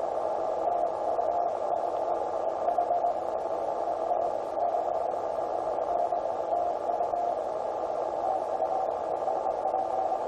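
Tecsun PL-368 portable shortwave receiver playing through its speaker, tuned to 7013 kHz on 40 metres in lower sideband. A steady rush of band noise and heavy local interference (QRM) fills the sound, with a faint tone coming and going over it.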